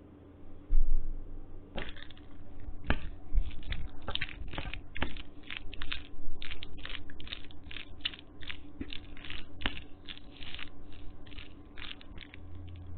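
Close-miked eating of Maggi instant noodles: a run of quick, irregular chewing and mouth smacks. A single low thump comes about a second in, before the eating sounds begin.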